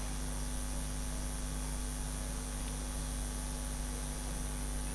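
Steady low electrical mains hum with a constant faint hiss, unchanging throughout.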